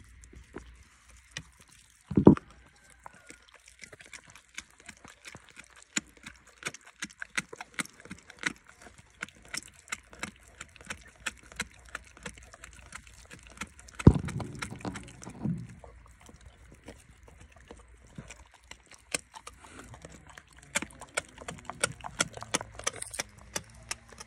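Dog gnawing a large raw meaty bone: a rapid, irregular run of sharp cracks and crunches of teeth on bone. Two much louder thuds, about two seconds in and around the middle.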